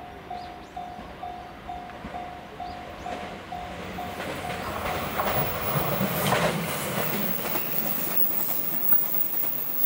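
A level-crossing bell dings about twice a second. From about four seconds in, an E261-series electric train passes close by, its wheels clattering over the rail joints. It is loudest about six seconds in and covers the bell.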